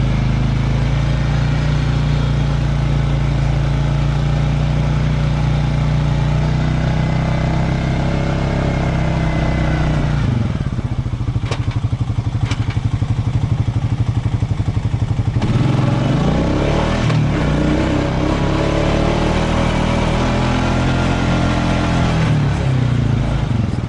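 Nearby ATV engine running at steady throttle, easing off to a lower note about ten seconds in, then revving back up with rising pitch a little past halfway and running on. Two short ticks come during the lower stretch.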